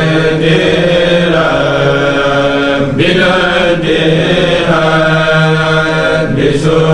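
A kourel, a group of men's voices chanting a Mouride khassida in unison without instruments, holding long notes that slide between pitches, with short breaks for breath about three seconds in and near the end.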